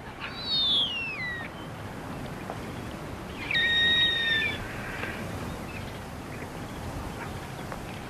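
Whistled bird calls. The first, about half a second in, slides down in pitch over about a second. The second, about three and a half seconds in, is a loud steady whistle on two pitches held for about a second. A steady background hiss runs beneath them.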